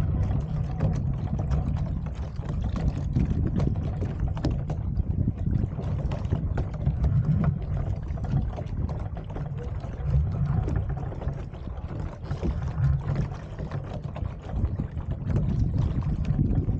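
Wind rumbling unevenly on the camera's microphone, with water slapping in small irregular splashes against the hull of a Sunfish sailboat under way.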